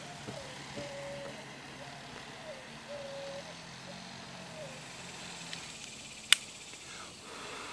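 Quiet puffing on a cigar as it is relit with a butane torch lighter, with one sharp click about six seconds in.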